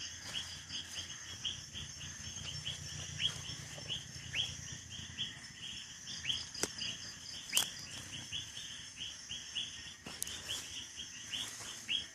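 Outdoor chorus of birds and insects: a rapid, regular chirping of about four short notes a second over a steady high pulsing buzz. Two sharp clicks come a little past the middle.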